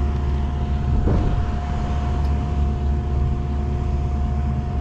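A steady engine-like hum: a deep low rumble with a constant droning tone above it, holding unchanged throughout.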